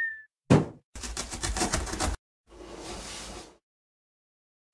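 Cartoon intro sound effects: a thud as a cardboard box lands, then a fast rattling for about a second, then a soft whoosh. A short bright chime starts right at the end.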